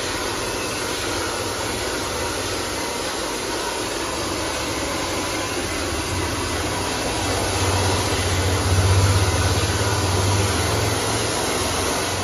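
Handheld hair dryer blowing steadily: a constant rush of air over a low motor hum, which grows louder for a few seconds in the middle.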